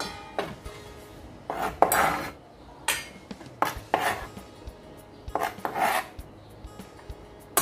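A kitchen knife scraping diced tempeh across a cutting board and the pieces clattering into a stainless steel bowl, in about five short separate strokes.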